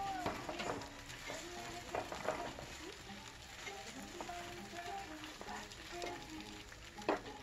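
A bánh xèo sizzling and crackling in hot oil in a frying pan, with a melodic background tune over it. A sharp knock comes near the end.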